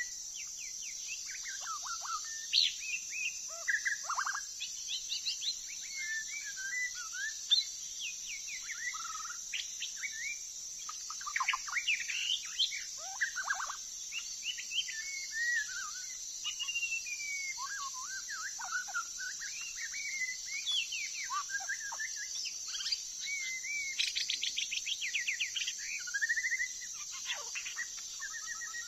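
A songbird singing a long, varied song of whistled phrases, slurred glides and rapid trills, over a steady high insect drone.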